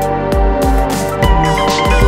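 Background music with a steady drum beat and held melodic notes.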